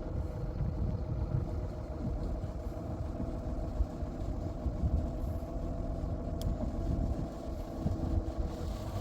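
An engine or heavy machine running steadily, a low rumble with a faint constant hum above it.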